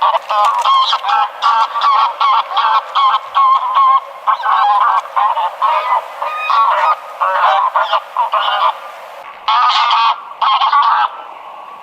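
Greylag goose honking: a rapid series of short, loud honks, about two a second, that stops just before the end.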